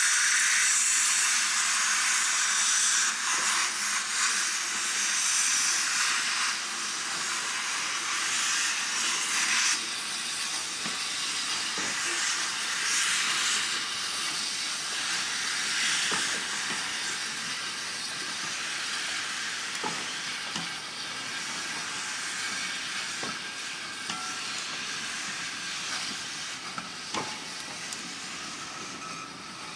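Steam locomotive venting steam: a loud, steady, high-pitched hiss, strongest for the first ten seconds and then slowly easing, with a few faint sharp clicks later on.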